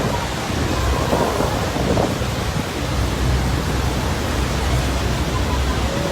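Niagara Falls: a steady, heavy rush of falling water, a dense even noise with a deep low rumble underneath.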